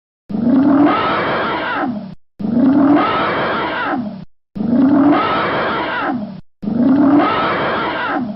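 An elephant roaring: the same call of about two seconds, a low rising tone breaking into a harsh rasp, repeated four times with short silent gaps between.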